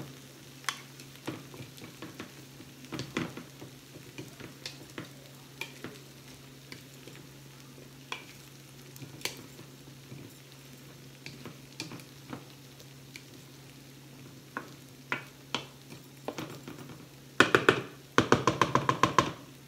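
Wooden spoon tossing a salad in a bowl: scattered light taps and scrapes, then a quick run of loud, rapid clattering near the end. Underneath, pork chops sizzle faintly on a flat grill, with a steady low hum.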